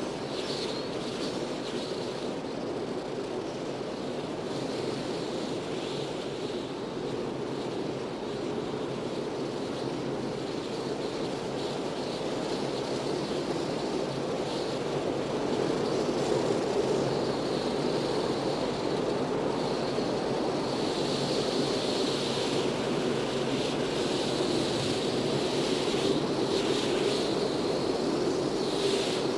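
Strong dust-storm wind blowing hard, with wind buffeting the microphone: a steady rushing that grows louder about halfway through.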